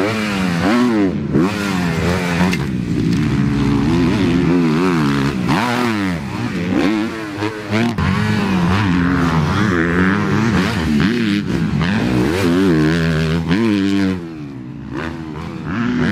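Kawasaki motocross bike engine revving hard and backing off again and again as a rider works the throttle around a supercross track, its pitch climbing and falling every second or so. It gets quieter near the end.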